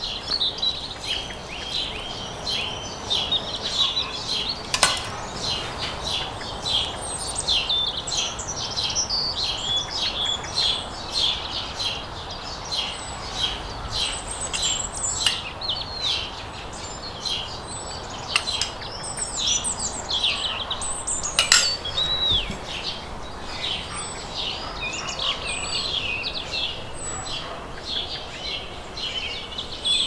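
Several small birds singing and chirping without a break, with a few sharp clinks of metal utensils and dishes.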